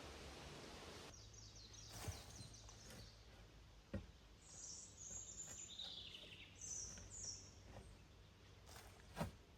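Near silence with a few faint, high bird chirps in the middle, and three soft clicks or knocks, the sharpest near the end.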